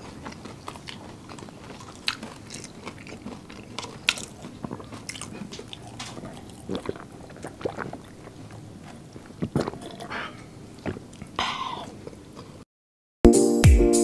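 Close-miked mouth sounds of people eating: chewing, lip smacks and small wet clicks, then sips from paper drink cups near the end. After a brief cut-out, music starts just before the end.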